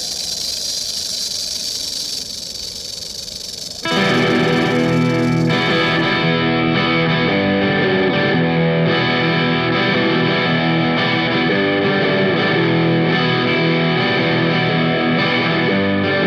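A steady hiss for the first few seconds, then guitar-led music starts abruptly about four seconds in and plays on steadily: the song's guitar intro.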